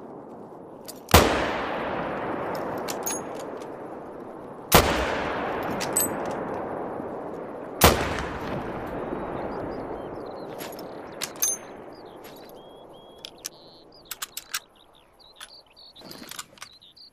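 Three Mosin-Nagant 7.62×54mmR bolt-action rifle shots, about three to four seconds apart, each followed by a long rolling echo. Short metallic clicks fall between the shots as the bolt is worked, and faint bird chirps come in near the end.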